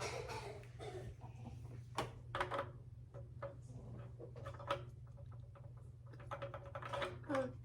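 Hard plastic toy-blaster parts and packaging being handled: scattered small clicks and brief rustles over a steady low hum.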